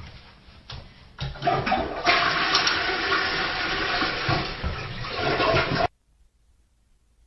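Toilet flushing: a few light clicks, then rushing water that starts about a second in, grows loud and cuts off suddenly near the end.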